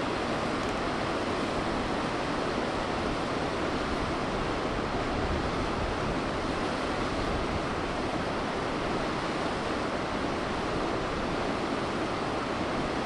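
Steady, unbroken rush of flowing water from a mountain river.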